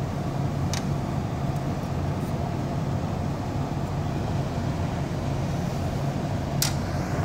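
Emerson Quiet Kool 19,000 BTU window air conditioner running on fan only with the compressor off: a steady hum of the fan motor and blowing air. Two light clicks come about a second in and near the end.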